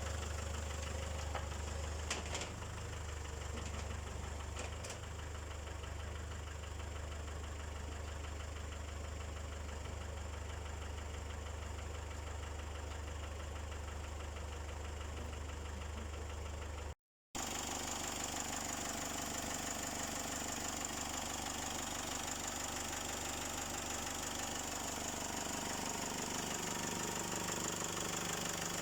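Range Rover Classic engine idling steadily with an even low hum. A brief dropout about two-thirds of the way through, after which it goes on sounding brighter.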